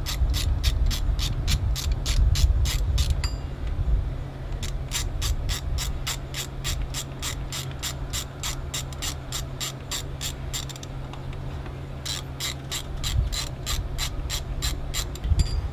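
Socket ratchet clicking steadily, about three or four clicks a second, in three runs with short pauses, as 13 mm bolts holding a power steering pump are backed out.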